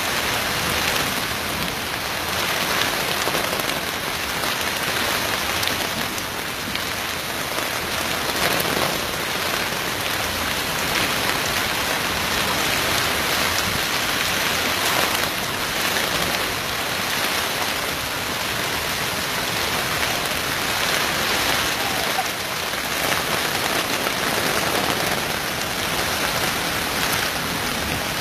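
Heavy rain pouring down steadily, a dense, even hiss of drops.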